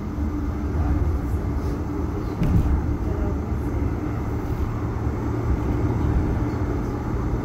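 Calgary CTrain light-rail car running, heard from inside the passenger car as a steady low rumble with a motor hum. A single knock sounds about two and a half seconds in.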